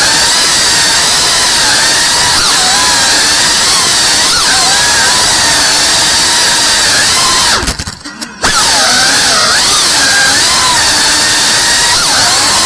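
3.5-inch ducted cinewoop FPV drone's motors and propellers whining, the pitch rising and falling with the throttle. The sound drops away sharply for under a second about eight seconds in, then comes back.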